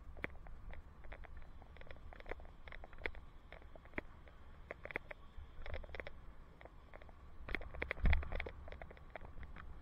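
Bicycle riding noise picked up by a helmet camera: a steady low wind rumble on the microphone with irregular clicks and rattles, and a louder thump about eight seconds in.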